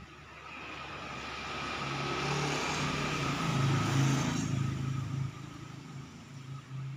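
A road vehicle passing by: a rushing noise with a low engine hum that builds to its loudest about four seconds in, then fades.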